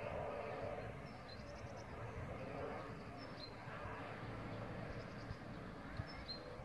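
Rescue helicopter flying away in the distance, its rotor and engine noise a faint, even rush that slowly fades. Small birds chirp briefly a few times.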